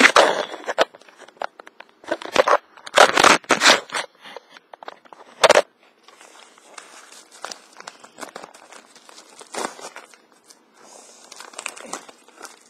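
A mailing package being torn open and its wrapping crinkled: several loud rips and crackles in the first six seconds, then quieter, continuous rustling of the packaging.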